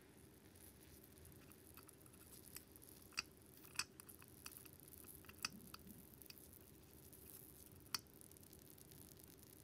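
Metal tweezers and a tiny spoon stirring a raw minced filling in a miniature copper pot: very faint soft mixing, broken by about four small, sharp clicks of metal against the pot.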